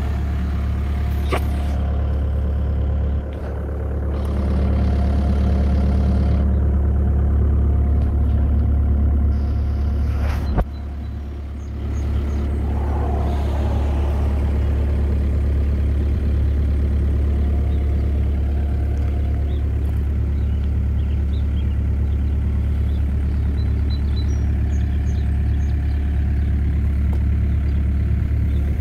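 A 2006 Bobcat 331G mini excavator's diesel engine idling steadily.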